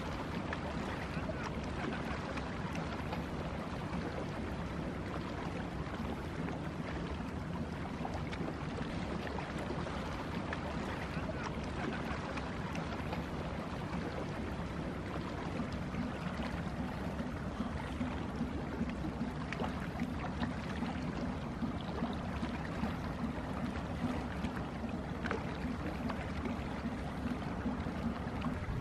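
Passing inland motor cargo ship's diesel engine running with a steady low hum over a wash of water and outdoor noise; the hum grows stronger about halfway through as the ship draws nearer.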